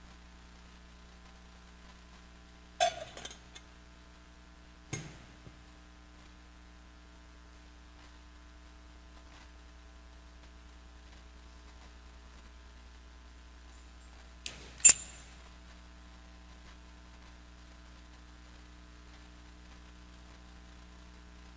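Sharp metallic clinks of the chalice and other altar vessels being handled and set down on the altar while they are cleaned and put away after communion. One clink comes about three seconds in, a smaller one about five seconds in, and a louder ringing pair around fifteen seconds in, over a faint steady electrical hum.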